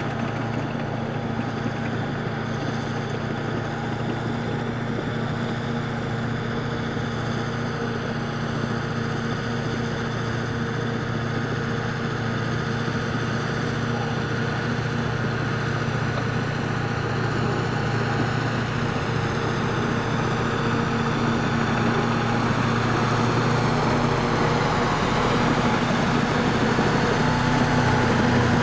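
Engine of a tracked all-terrain carrier running steadily under load as it tows an SUV through a river, with water churning around its tracks. It gets gradually louder as the vehicle comes closer.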